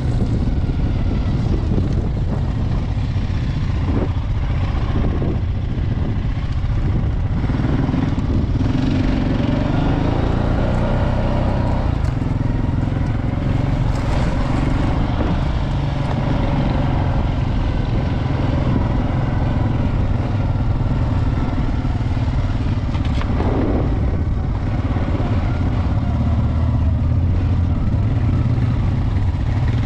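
ATV engine running steadily while riding over a rough dirt trail, with occasional knocks as the machine goes over bumps.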